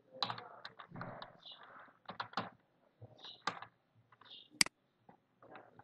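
Typing on a computer keyboard: irregular keystrokes, with one sharper click about four and a half seconds in.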